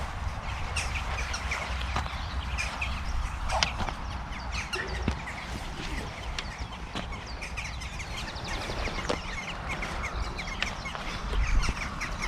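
Wild birds singing and calling: scattered short chirps and whistles, with a rapid trill about eight seconds in, over a steady low rumble.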